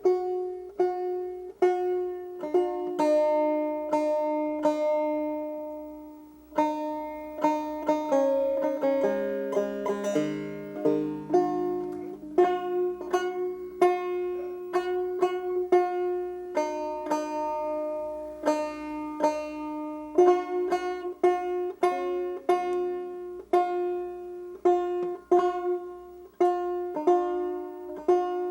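Five-string banjo played solo, a steady run of plucked notes over a high drone string, with a brief pause about six seconds in before the tune picks up again.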